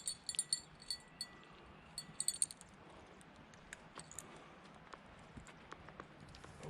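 Small fishing-rod bite-alarm bell jingling in quick shakes over the first couple of seconds as it is taken off the rod, then only faint clicks.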